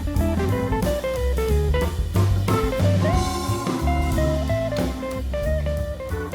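Background music: a guitar-led tune with bass and a steady drum-kit beat, in a bluesy style.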